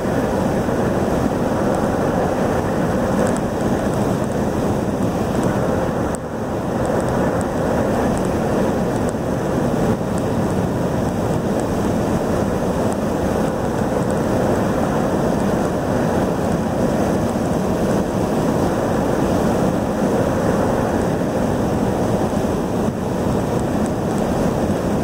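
Steady rush of road and wind noise inside a car cruising at highway speed, with a brief dip about six seconds in.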